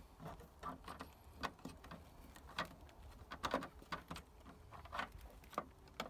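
Irregular light clicks, taps and rustles of a heated side mirror's plastic housing and its wiring pigtail being handled and fed through the mirror mount hole in a car door.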